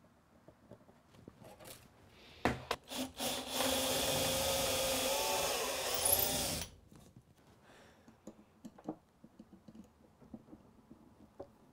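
Cordless drill boring a hole through a wooden drawer front for a handle screw. It runs once for about three seconds, starting about three seconds in, its pitch wavering, and stops abruptly. A couple of knocks come just before it and light handling clicks after.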